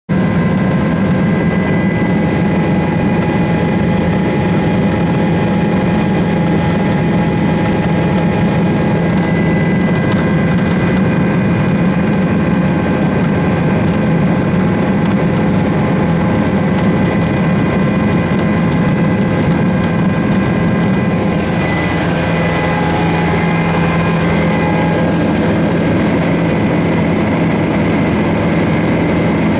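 Helicopter engine and rotor noise heard from inside the cabin in flight: a loud, steady drone with a constant whine over it.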